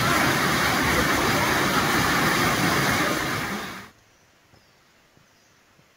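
Loud, steady rushing noise that cuts off abruptly a little under four seconds in, leaving near silence.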